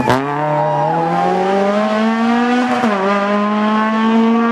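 Rally car engine at high revs, accelerating hard: its pitch climbs steadily, drops at a gear change about three seconds in, and climbs again.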